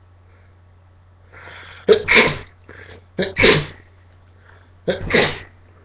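A man sneezing three times in quick succession, about a second and a half apart, after a drawn-in breath; each sneeze is a short catch followed by the main burst. The sneezes are self-induced.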